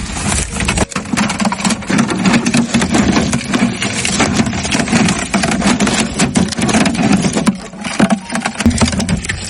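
A rubber-tapping knife shaving a groove into the bark of a rubber tree: a steady, dense scraping rattle of rapid strokes.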